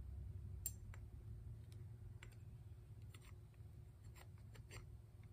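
Faint, scattered clicks and light metal taps as a choke lever and shaft are fitted into a small-engine carburetor body by hand, the sharpest click a little under a second in, over a faint low hum.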